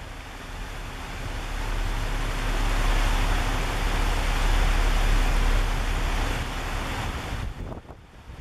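Wind buffeting the microphone on the deck of a moving boat: a heavy low rumble under a broad rush. It swells to its loudest in the middle and cuts off abruptly near the end.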